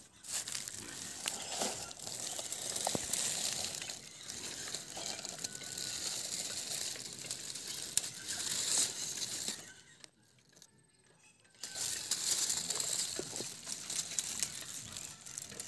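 Dry grass and straw rustling and crackling as it is pushed aside by hand and with a stick, with a few light clicks. It stops for about two seconds a little after the middle, then resumes.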